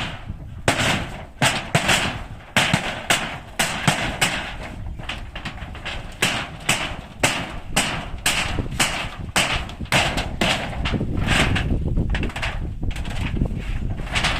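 Irregular sharp hammer knocks, about one or two a second, as nailed roofing is knocked apart.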